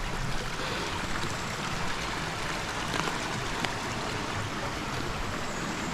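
River water flowing, a steady rushing noise, with a few faint ticks on top.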